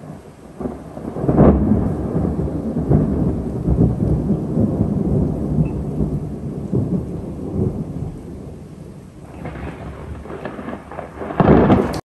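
Thunder over steady rain: a long rolling peal swells about a second in and slowly fades, then a second, louder clap near the end cuts off suddenly.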